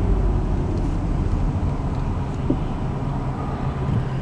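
Car engine and road rumble heard from inside the cabin as the car is driven slowly and pulled off to the side: a steady low rumble with a faint engine hum.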